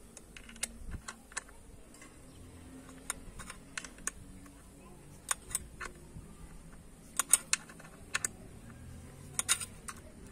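Light, irregular metal clicks and taps of an Allen key on the fixing bolt of a diesel engine's EGR valve as it is being undone, coming in small clusters, the loudest about seven and nine and a half seconds in.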